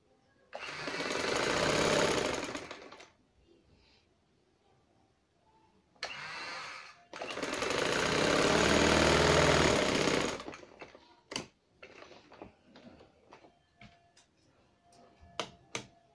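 Domestic sewing machine stitching through fabric in two runs: a short run of about two seconds, then after a pause a longer run of about four seconds. Then come a few light, sharp clicks and taps as the machine and cloth are handled.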